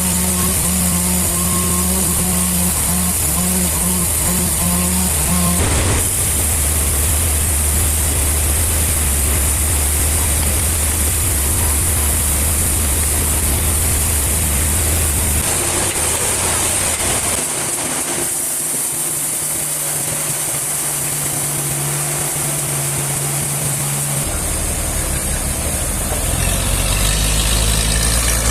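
Sawmill machinery running steadily: an engine's drone under a constant high hiss. Its low hum changes abruptly several times.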